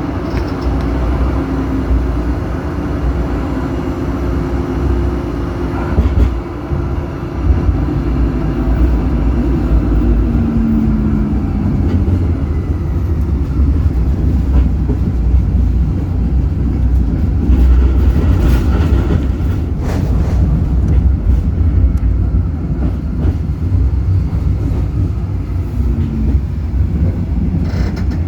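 Zürich tram running along its track: a steady low rumble with the electric drive's tones, a short gliding whine about ten seconds in, and a few sharp knocks from the running gear on the rails.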